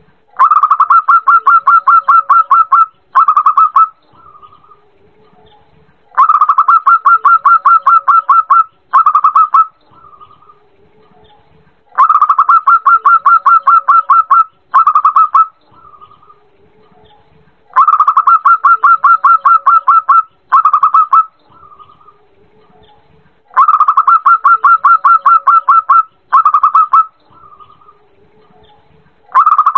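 Zebra dove (perkutut) song: a fast run of short staccato coos lasting about two and a half seconds, then a brief second burst. The phrase repeats evenly about every six seconds, five times, with the next one starting near the end.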